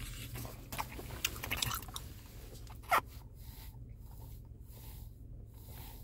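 Person biting and chewing a crunchy breaded fried chicken wing, with crisp crunches in the first couple of seconds and one sharper click about three seconds in.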